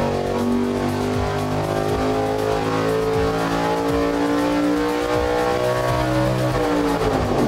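High-performance engine on an engine dynamometer, fitted with a 268/284 split-duration camshaft, running a loud wide-open-throttle pull as the revs climb to about 7,100 RPM. The pitch drops near the end as the engine is let off after the pull.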